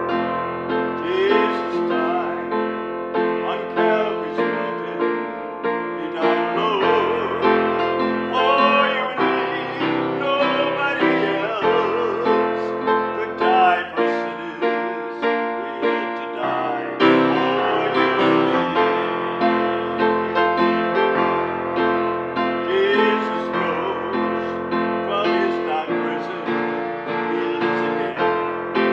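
Upright piano played solo, a continuous run of held chords under a melody line.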